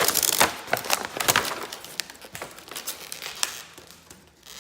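Broken pieces of a sledgehammer-smashed laptop being handled: a dense run of crackling, clicking and rustling, busiest in the first second and a half, then scattered clicks.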